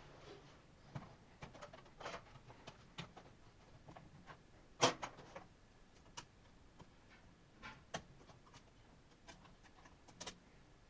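Irregular small clicks and taps of a laptop's parts and tools being handled during disassembly, with one sharper click about five seconds in.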